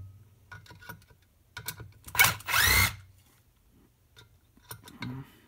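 Cordless impact driver running in two short bursts about two seconds in, its motor pitch rising and falling as it works on the Phillips screws holding the light's lid. Light clicks and handling knocks come in between.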